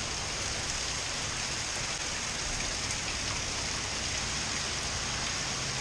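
Steady rain coming down hard, a continuous even hiss of drops.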